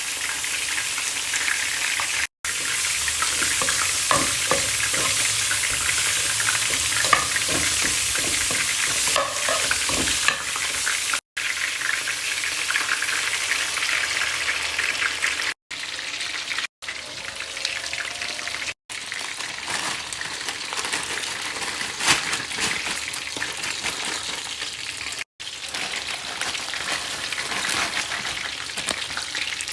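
Food sizzling as it fries in a hot pan, with a utensil stirring and scraping against it. The sizzle is cut off briefly several times.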